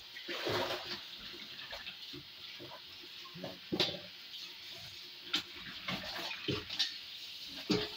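Kitchen tap running into a sink in a steady hiss, with a few sharp clinks as mussels are handled in a bowl.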